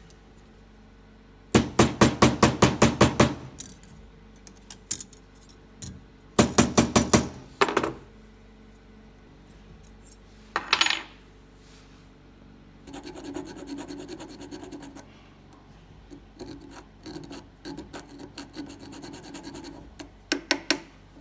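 Hammer striking silver in quick, even runs of taps, twice and then briefly near the end, with a single ringing metal clink about halfway through. Between the runs there are stretches of softer rasping, like the metal being filed or rubbed.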